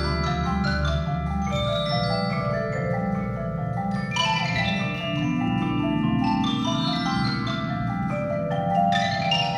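Percussion ensemble playing: marimbas and other mallet keyboards ring out overlapping pitched notes in layered patterns over low bass notes, and the bass drops back about a second and a half in.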